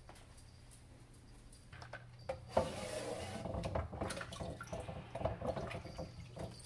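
Kitchen faucet running into a sink while a glass container is rinsed and handled, with light clatter of dishes. It starts with a knock about two and a half seconds in; before that, only a few soft knocks.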